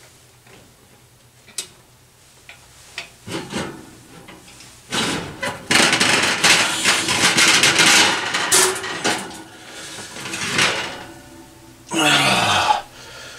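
Oven rack sliding out and a cast iron Dutch oven scraping and clanking against the metal rack as it is pulled out of an electric oven, after a few light clicks. A short loud clatter comes near the end as the heavy pot is lifted.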